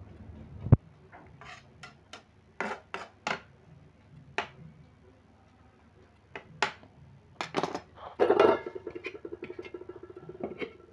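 Metal spoon tapping and scraping against a small metal cooking pot while onion greens are stirred, in sharp irregular clinks. Near the end a metal lid is set on the pot and clatters, then rattles quickly with a ringing tone for a couple of seconds as it settles.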